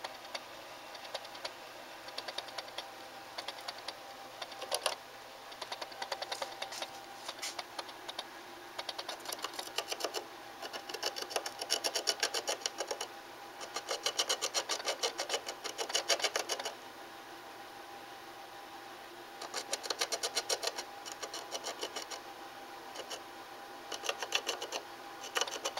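An animal scratching and digging inside a bedroom wall: fast rattling scratches that come in bursts of two to three seconds, several times over.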